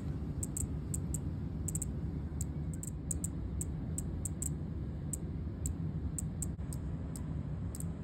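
A cicada calling in short, high-pitched clicking chirps, about three a second at an uneven pace, over a steady low background rumble.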